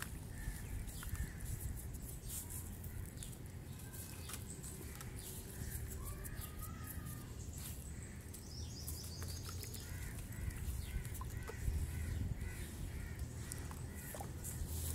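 Damp brown sand crumbled by hand into a plastic tub of muddy water, giving small scattered patters and plops, over a steady low rumble. Birds chirp in the background, with a run of repeated chirps in the second half.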